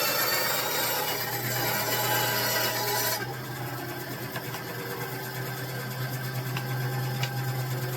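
Consumer-grade benchtop bandsaw running, with a rasping cutting noise over a steady motor hum; the rasping drops away sharply about three seconds in, leaving the hum.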